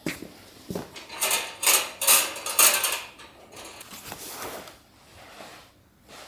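Metal camping gear being handled: a couple of light clicks, then about two seconds of clattering and scraping, followed by a softer rustle.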